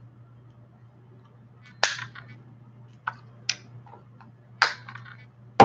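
Several sharp hand smacks at irregular intervals, the last the loudest, over a faint steady low hum.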